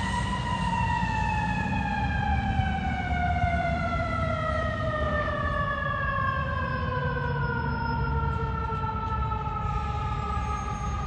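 Fire engine siren slowly winding down, one long steadily falling wail that coasts down in pitch the way a mechanical siren spins down, over the low rumble of the idling truck engine.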